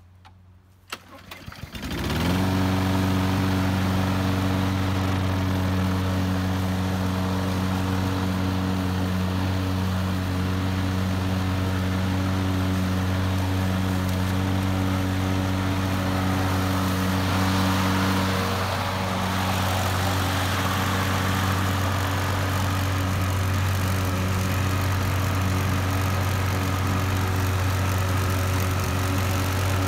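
Walk-behind gas lawn mower engine starting about two seconds in, then running steadily while the mower is pushed across the lawn cutting grass.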